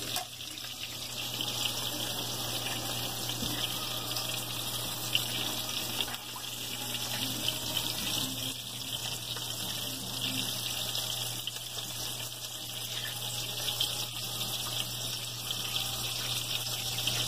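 Steady hissing kitchen noise from stovetop cooking, with a low steady hum underneath.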